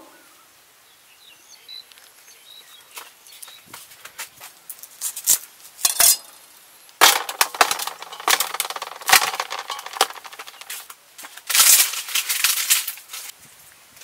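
Live snakes writhing in an aluminium basin, their bodies scraping and slapping against the metal in two spells of clatter, with scattered clicks between.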